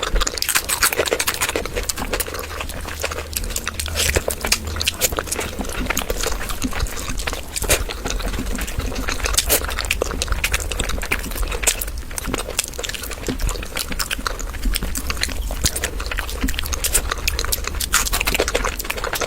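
Close-up wet eating sounds: a person chewing and lip-smacking on curry, with many small irregular clicks.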